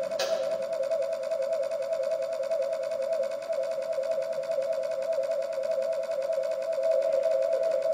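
A steady electronic buzzing drone with a fast pulsing texture, glitch sound from the performance's computer played over the hall speakers. There is a short click about a quarter second in.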